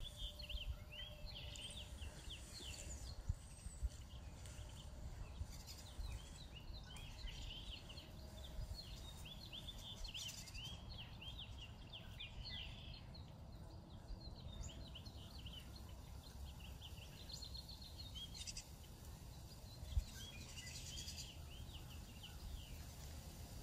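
Many birds calling together in a dense chorus of quick, repeated high chirps, thinning out for a few seconds near the middle, over a low rumble of wind on the microphone.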